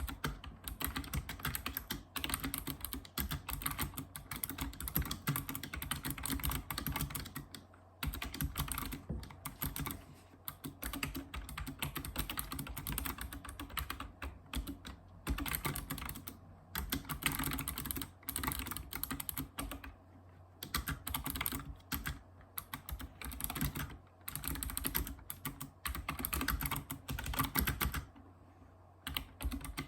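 Typing on a Razer Ornata Chroma keyboard, its mecha-membrane keys clicking in quick, continuous runs, with a few short pauses.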